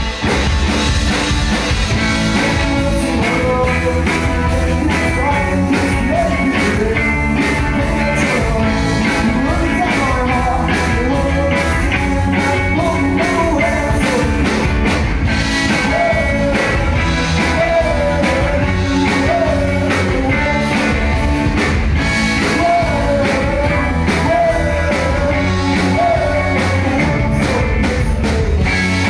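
Indie rock band playing live: guitar and drums driving a steady, loud rock song, with a lead vocal singing over them.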